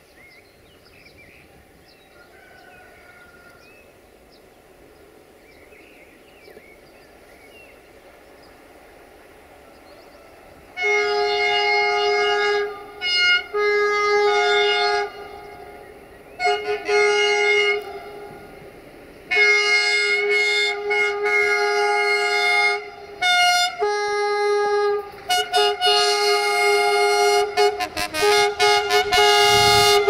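Air horn of an LDE2100 (060-DA) diesel-electric locomotive sounding a series of blasts from about a third of the way in: long and short blasts, including one held for about three seconds, then a quick run of short toots near the end. The locomotive's running and the rumble of the train come up under the horn as it nears.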